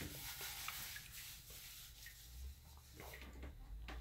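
Faint handling noises: a few light taps and rubbing sounds, with a low hum that comes in about halfway.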